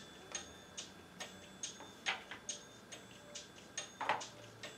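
Soft, regular ticking, a little over two ticks a second, over a faint steady high tone.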